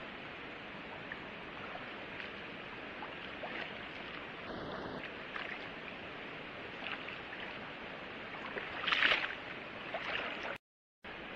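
Steady rush of flowing water, with a louder swishing swell about nine seconds in and a short high tone about four and a half seconds in. The sound cuts out for a moment near the end.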